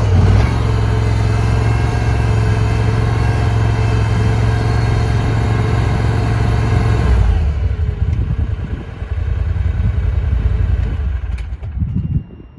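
Mini skid steer's engine running steadily. About seven seconds in, its higher note drops away, leaving an uneven low rumble that stops near the end.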